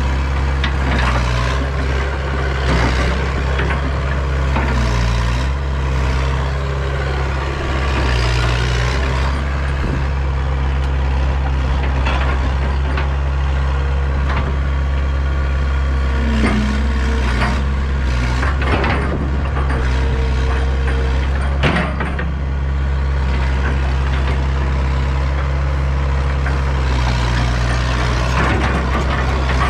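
Hitachi EX100 excavator's diesel engine running steadily under work, with intermittent squeals and knocks from the machine as it works.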